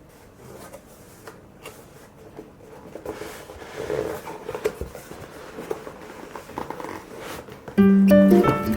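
Quiet rustling and light clicks of objects being handled by hand. Ukulele music starts near the end.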